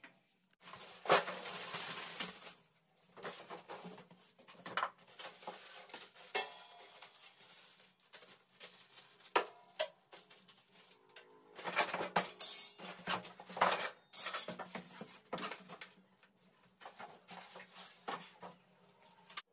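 Metal pan supports and the stainless-steel body of a gas hob being handled and lifted out of polystyrene packaging: irregular clinks, knocks and scrapes of metal.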